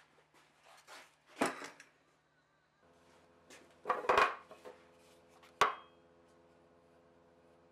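Solid softwood blocks set down and knocked on a slatted metal machine table, a few sharp wooden knocks: one about a second and a half in, a quick cluster around four seconds and a single one near six seconds. A faint steady hum starts about three seconds in.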